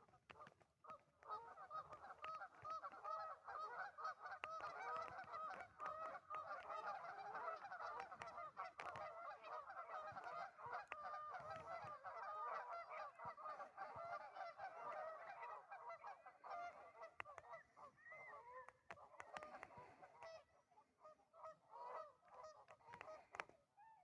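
A large flock of waterfowl calling together, many calls overlapping in a dense chorus that thins to scattered calls in the last few seconds.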